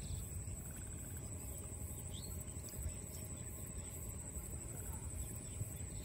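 Outdoor field ambience: a steady high-pitched insect drone over a low rumble, with a short bird-like chirp about two seconds in.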